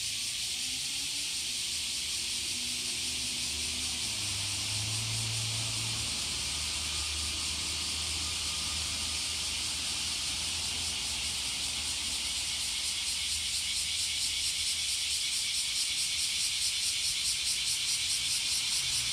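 Bear cicadas (kumazemi, Cryptotympana facialis) calling: a continuous shrill buzz that, about two-thirds of the way through, turns into the species' rhythmic 'washi-washi' pulsing at about three pulses a second.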